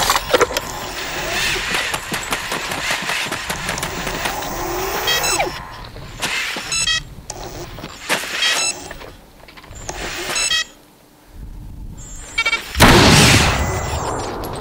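A robot's servo motors whining up and down, with many mechanical clicks, clatter and runs of fast ticks as it moves. Near the end comes a loud, sudden burst.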